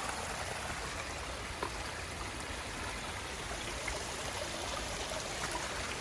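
Steady rush of flowing mountain water, a creek or waterfall running hard with snowmelt, an even noise without change.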